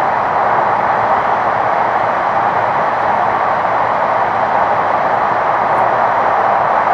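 Hokkaido Shinkansen train running, heard from inside the passenger cabin: a steady, even running noise with no change in level.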